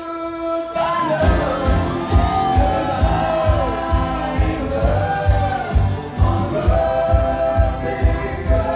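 Live bluegrass band playing, with a man singing over strummed acoustic guitar. The band thins out briefly at the start, and a steady low beat comes back in about a second in.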